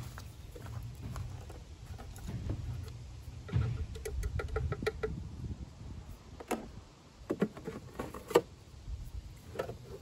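Handling sounds of a plastic fluid bottle and tools in an engine bay: a quick run of about eight small clicks lasting about a second, four seconds in, then several sharp plastic clicks and taps, over a low rumble in the first half.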